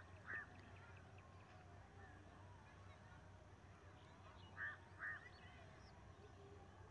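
Near silence with a faint low hum, broken twice by a pair of short, faint bird calls, one pair at the start and one about four and a half seconds later.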